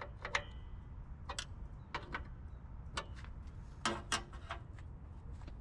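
Scattered sharp metallic clicks and clinks of a hand tool working the 10 mm bolts, irregularly spaced, with two close together near the end, over a faint low hum.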